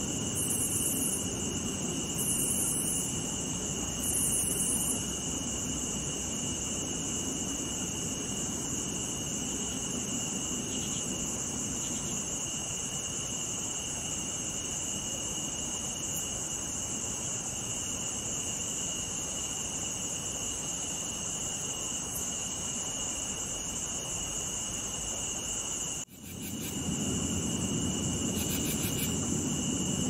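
Insect chorus of crickets and cicadas: a steady, shrill trill at two pitches over a low rumble, with a few short higher buzzes in the first few seconds. Near the end it drops out for a moment and swells back.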